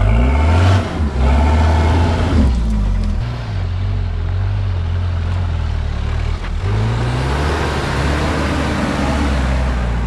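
Toyota 4x4 truck engine running under load off-road, revving up and easing off several times. The pitch climbs near the start, holds, and rises again about seven seconds in.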